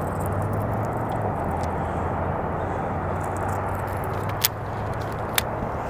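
Steady low outdoor rumble, with two sharp clicks about a second apart near the end.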